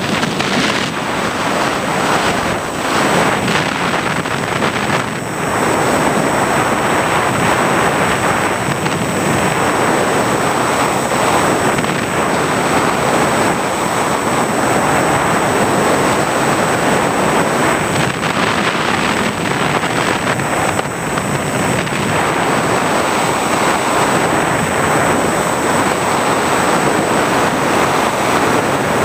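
Wind rushing over the onboard camera's microphone on an FPV model aircraft in flight: a steady, dense hiss with a thin, constant high whine above it.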